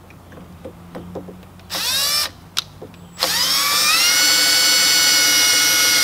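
Cordless drill drilling a screw hole in an RV screen door frame. It spins up briefly about two seconds in, then runs from about three seconds in, speeding up and settling into a steady whine.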